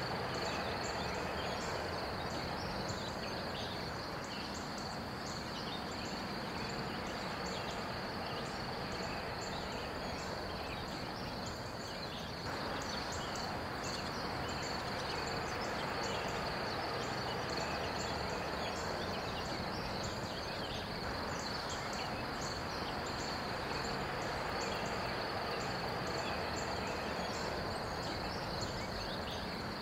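Steady outdoor ambience: a constant high insect drone with rapid chirping above it, over a low, even rumble from a distant diesel freight train approaching.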